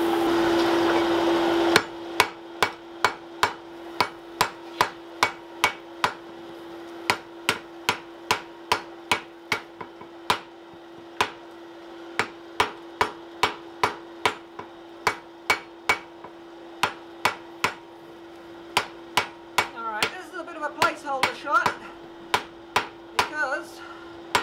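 Hand-hammer blows on a white-hot wrought-iron post and collar on the anvil, forge-welding the collar in place. After a rushing noise for about the first two seconds, the blows come steadily at about two to three a second, with a few brief pauses.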